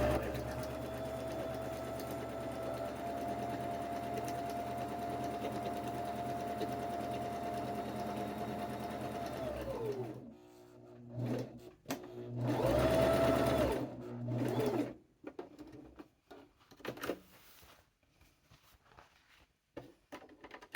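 Electric sewing machine stitching at a steady speed, its motor whine holding one pitch for about ten seconds before winding down to a stop. A second short run of stitching follows a couple of seconds later, then a few light clicks.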